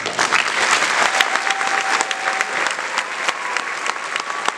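Audience applause breaking out suddenly at the close of a concert band piece and carrying on dense and steady.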